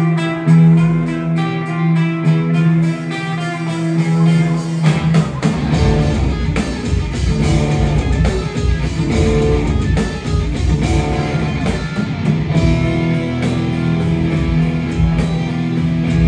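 Live band playing loud: an electric guitar alone at first, then bass and drums come in about five seconds in and the full band plays on.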